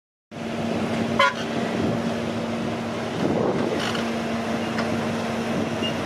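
Diesel flatbed crane truck running as it drives past on a dirt road, a steady engine drone with a held low hum. A brief high-pitched sound about a second in.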